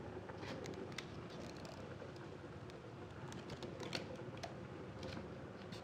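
Light irregular clicks and taps, about one or two a second and unevenly spaced, over a steady low hum.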